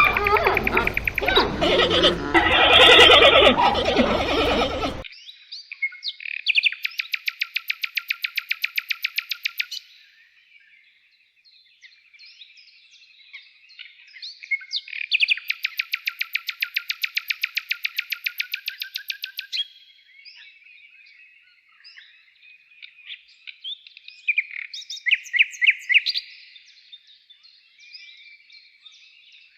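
Bird chirps and two long, rapid, evenly pulsed trills. They follow a loud full-range sound that cuts off suddenly about five seconds in.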